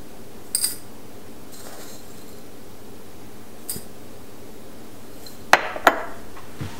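Metal teaspoon clinking against glass as loose-leaf tea is spooned from a glass jar into a glass teapot: a few light taps, then two sharp, ringing clinks about half a second apart near the end.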